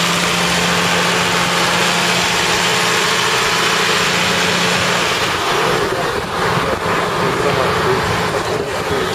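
New Holland TM120 tractor's diesel engine running as the tractor rolls slowly past close by, with a steady low hum. After about five seconds it becomes less even and drops slightly, with crowd chatter behind it.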